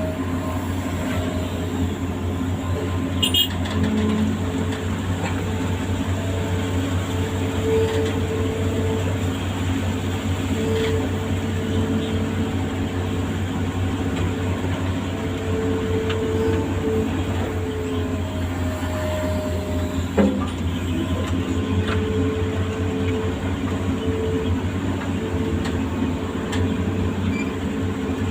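Amphibious excavator's diesel engine running steadily under work, with a higher whine that comes and goes as it works and a single sharp knock about twenty seconds in.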